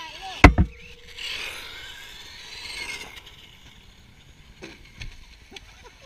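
Two sharp knocks close to the microphone about half a second in, the loudest sound. Then a couple of seconds of a remote-control car's electric motor whining and its tyres hissing on asphalt, with a few fainter knocks near the end.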